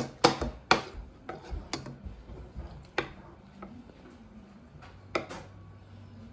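Utensils clinking and knocking against a bowl while rice is put into broth: a quick cluster of sharp clicks at the start, then single knocks every second or two.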